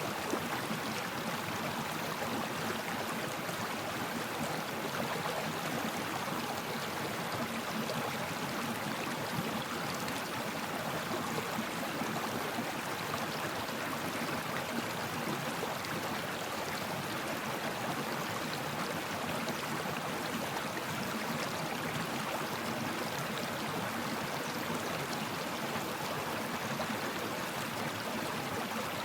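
River water flowing steadily, an even, unbroken rush.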